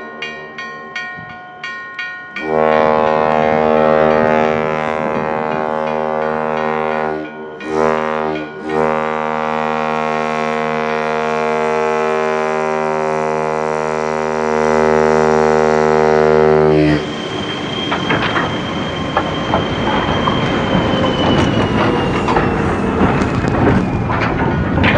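Diesel locomotive's air horn sounding for a grade crossing in long blasts with two short breaks, after a brief quick ringing at first. About two-thirds of the way in the horn stops and the snow plow train passes in a rush of noise as it throws snow, with a high squeal slowly falling in pitch.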